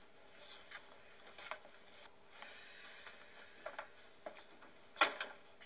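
Scattered light clicks and knocks in a small room, with one louder knock about five seconds in, over a faint steady hum.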